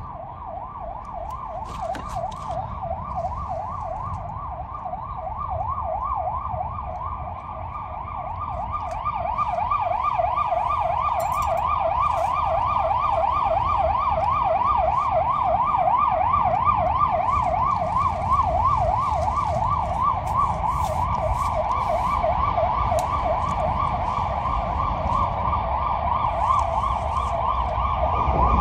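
Emergency vehicle siren in a fast up-and-down yelp, sweeping several times a second, growing louder over the first ten seconds and then staying loud, over a low rumble.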